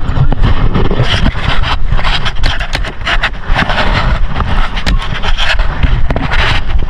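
Rumbling, scraping handling noise from a body-worn camera's microphone rubbing against clothing and gear as the player shifts his crouch, with scattered sharp clicks and knocks.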